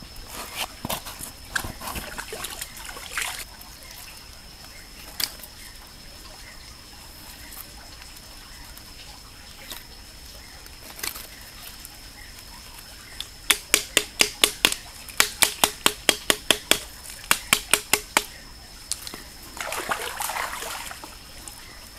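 Knife chopping lemongrass: a quick run of sharp knocks, about five a second, in three bursts past the middle. Rustling of the stalks being handled comes before and after, over a steady high thin tone.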